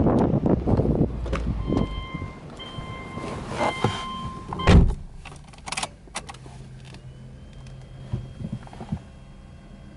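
Subaru Legacy's door shut with one heavy thunk about five seconds in, after a few seconds of the car's beeping door-open warning chime. Then a couple of clicks and a low steady hum as the ignition is switched on, before the engine is started.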